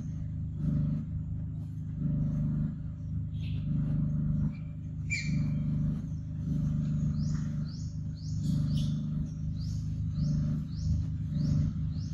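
A steady low motor-like hum that swells and fades about once a second. Over it, a bird calls once about five seconds in, then from just past halfway gives quick high chirps about twice a second.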